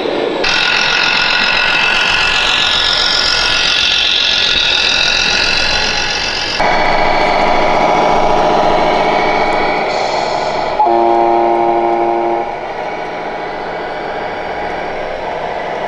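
Electronic sound modules of RC model trucks playing truck sounds. A held, multi-note air horn sounds about six and a half seconds in, and a second, stronger horn blast comes around eleven seconds, over engine running and hall noise.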